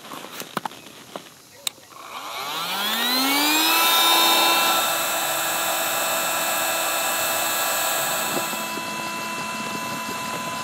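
Handheld electric air pump inflating an air tent through its valve. After a few handling clicks, the motor spins up about two seconds in with a rising whine, then runs steadily.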